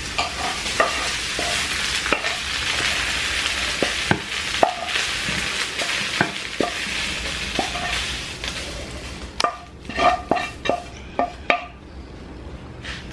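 Hot food sizzling in a frying pan while a wooden spoon stirs and scrapes it out into a bowl. The sizzle fades after about eight seconds, and the spoon knocks against the pan several times near the end.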